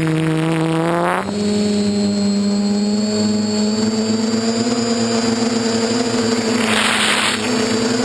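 DJI F450 quadcopter's motors and propellers humming in flight, the pitch stepping up about a second in as the throttle rises and then holding steady. A short rush of hiss comes near the end.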